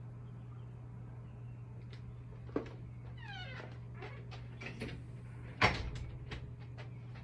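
Knocks and clicks of things being moved and handled over a steady low hum, with a short falling squeal about three seconds in and one sharp bang a little after five seconds.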